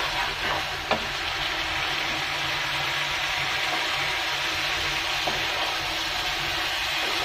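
Soaked mung dal, potatoes and fish frying in oil in a wok, sizzling steadily as a wooden spatula stirs and scrapes through the mixture. There is a single sharp tap about a second in.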